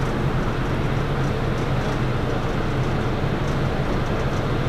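Steady low hum of a car ferry's engines running while it waits at the pier, with a constant rush of wind on the microphone.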